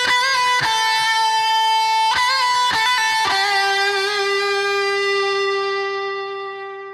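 Closing theme music: a solo electric guitar plays a short melody, with a few notes bent in pitch. It ends on a long held note that slowly fades away.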